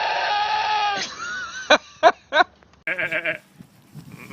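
Livestock bleating. One long drawn-out bleat ends about a second in, followed by three short, sharp bleats and then a quavering bleat near the end.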